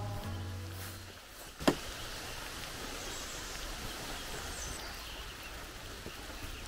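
Background music fades out in about the first second. A single sharp click comes a little under two seconds in, followed by steady outdoor forest ambience with a few faint high bird chirps.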